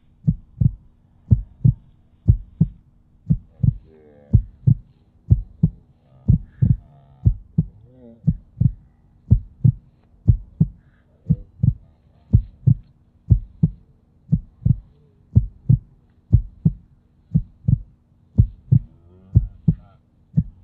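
A deep thumping beat like a heartbeat, about two thumps a second in loose pairs, laid over the footage as a soundtrack. Faint wavering tones come in for a few seconds near the middle.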